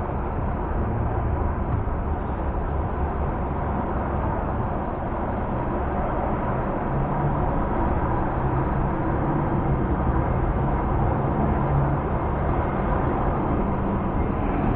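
Steady freeway traffic noise from inside a car crawling in heavy traffic, with engines and tyres, heard through an open car window.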